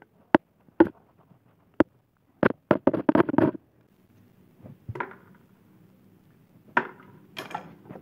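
Sharp single clicks, then a quick run of clattering about two and a half seconds in, and a few softer knocks near the end: hard plastic and metal washing-machine parts and tools being handled and set down during disassembly.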